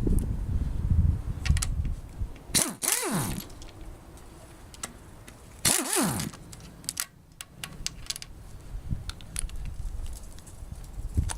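Two short runs of a power driver or electric ratchet spinning loosened bolts out of a Honda D16Y8 engine, each winding up and back down, about three seconds apart. Light metal clicks and clatter from the bolts and tools come in between.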